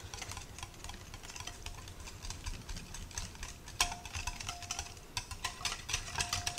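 Wire whisk beating a thick mayonnaise-based sauce in a glass bowl, its wires clicking rapidly and unevenly against the glass, with one sharper clink about four seconds in.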